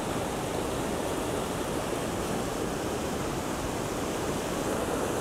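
River rapids rushing: a steady, even wash of white water running fast over rock.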